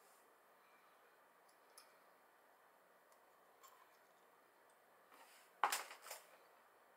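Faint small clicks of edamame pods being squeezed and eaten, then a brief cluster of sharp clicks and rustling near the end as more edamame pods are handled.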